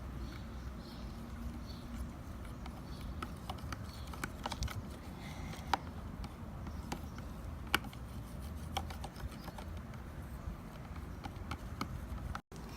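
Glue and glitter being stirred in a plastic pot with a utensil: irregular light clicks and taps as it knocks against the container, over a low rumble of handling noise.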